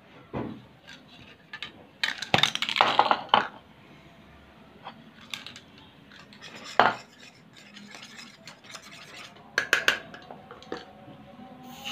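A metal spoon clinking and scraping against a ceramic bowl while stirring white PVA glue for slime, in a few short bouts: a busy run of clatter about two seconds in, a single knock near the middle and another quick run of clinks near the end.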